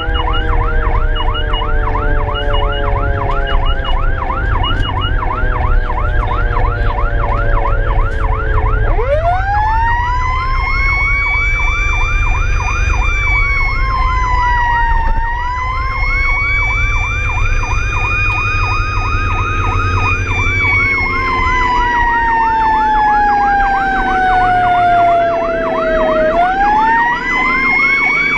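Fire apparatus sirens sounding while responding, heard over the vehicle's engine rumble. A rapid electronic yelp repeats several times a second throughout. A second, slower wailing siren falls at first, then climbs steeply about a third of the way in, dips and climbs again, falls slowly, and winds back up near the end.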